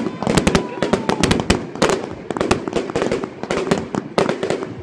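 Brocade Blaster fireworks cake firing shot after shot: a fast string of launch thumps and aerial bursts, several a second, over a steady crackle.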